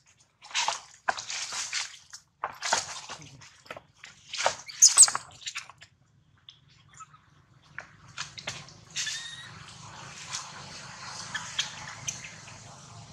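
Macaques, a mother and her clinging infant, make a run of short, noisy bursts over the first six seconds, loudest about five seconds in. After a short lull there is a faint steady hiss.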